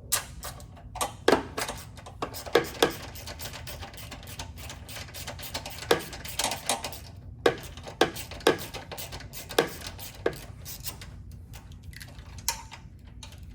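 Metal hand tools and bolts clinking and knocking in irregular sharp clicks, a dozen or so louder ones among lighter taps, as the sway bar link hardware is worked loose and handled.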